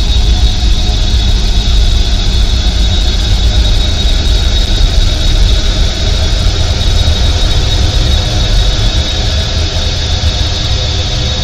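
Experimental ambient noise music: a loud, dense drone with a heavy low rumble and a steady high whine over a noisy haze, easing off slightly near the end.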